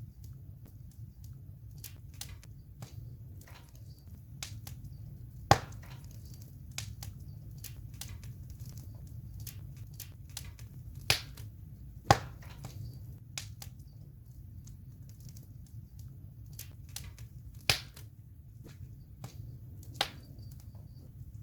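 Campfire burning: wood crackling with frequent small pops over a steady low rush of flame. Five sharp, louder pops stand out, about five and a half, eleven, twelve, eighteen and twenty seconds in.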